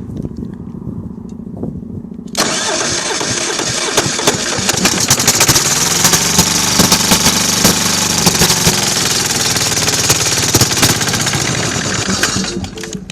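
Kohler KD425-2 two-cylinder diesel being cranked over for about ten seconds, starting suddenly a couple of seconds in and stopping near the end, without catching. It is a hard cold start, with the fuel thought too cold to flow through the small filter.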